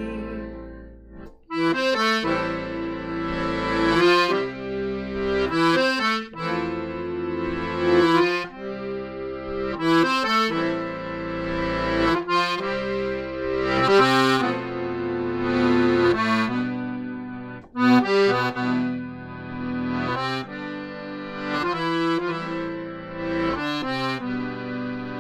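Piano accordion playing a traditional folk tune without voice: a melody over held chords and bass notes, in phrases of about two seconds, starting after a short pause about a second and a half in.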